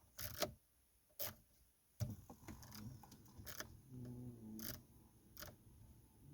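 A few faint, separate clicks, about six spread over several seconds, from the heater and fan controls on the dash of a 2009 Honda Ridgeline being switched. No blower is heard running: the blower motor has failed.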